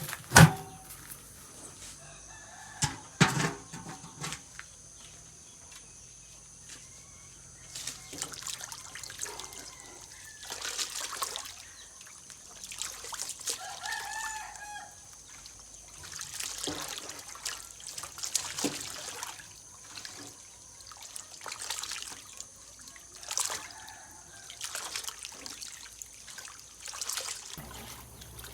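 Farmyard sounds: a chicken clucking, among repeated splashes of water every couple of seconds, after two sharp knocks near the start. A steady high whine runs underneath.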